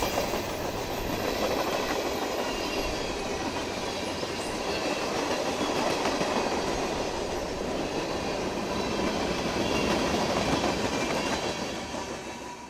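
Freight train rolling past, the clatter and rumble of its wheels on the rails holding steady, then fading away near the end.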